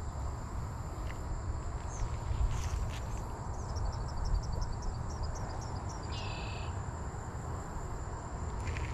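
Insects calling in a steady high drone over a low outdoor rumble, with a run of quick ticks at about five a second in the middle, ending in a short buzz.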